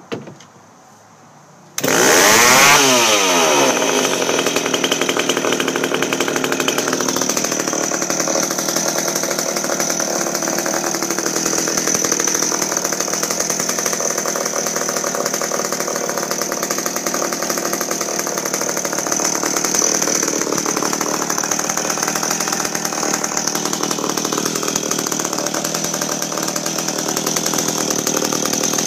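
McCulloch Pro Mac 700 two-stroke chainsaw being started: a short knock right at the start, then about two seconds in the engine catches, its pitch swings briefly, and it settles into steady running.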